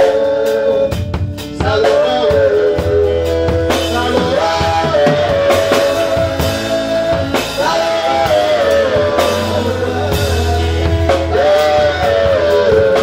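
Live gospel praise song: a man and a woman singing into microphones in long held notes, over a band with drums.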